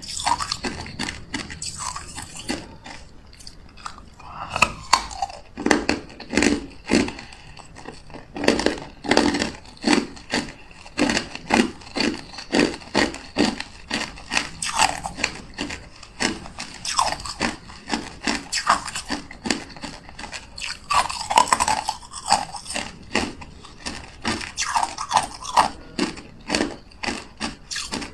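Clear hard ice being bitten and chewed: a steady run of sharp crunches, about two a second.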